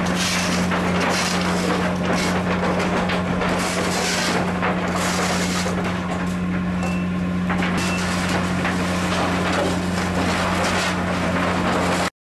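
Steady low hum of a research vessel's machinery, with dense rattling and clattering from a scallop dredge and its catch of shells and rocks being handled on deck.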